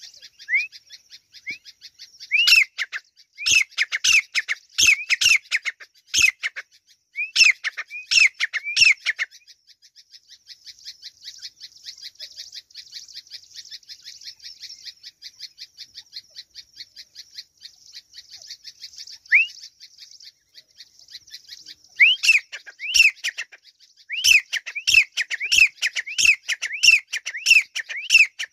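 Grey francolin calling: shrill rising calls repeated in quick series, one run in the first third and another through the last several seconds, with a lone call in between. A steady, high pulsing buzz fills the quieter middle stretch.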